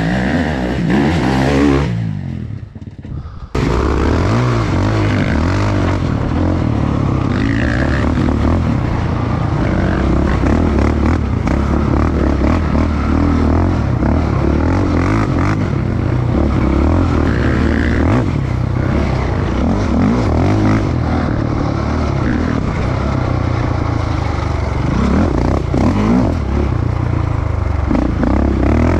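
An off-road motorcycle engine revving as the bike comes down the track. About three and a half seconds in, the sound cuts abruptly to a quad's engine running hard under the rider on a dirt trail, rising and falling with the throttle amid the rattle of the ride.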